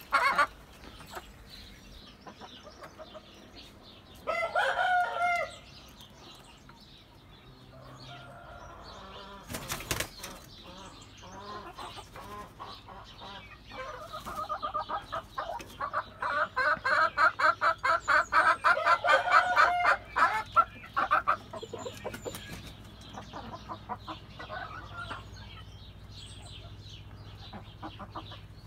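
Chickens clucking in a coop: a short squawk about four seconds in, a brief sharp sound near ten seconds, then a long run of quick clucks, about four a second, loudest in the middle of the stretch.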